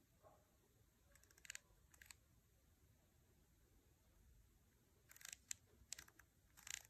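Faint clicks of the aperture ring on a Light Lens Lab 35mm f/2 lens, turned through its click stops to close the blades down and open them again. A few soft clicks come about a second in, and a closer run of them comes near the end.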